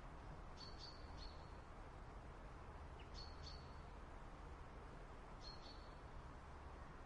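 Small birds giving short, high chirps in little groups of two or three, a few seconds apart, over a faint steady outdoor hiss.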